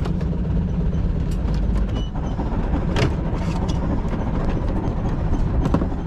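A fishing boat's engine running steadily with a low hum, with a few brief knocks and clicks on deck as a freshly landed fish is handled.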